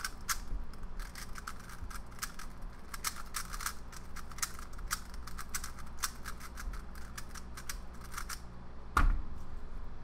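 A 3x3 Rubik's speed cube being scrambled by hand: fast, irregular plastic clicks as the layers are turned, several a second. A thump near the end.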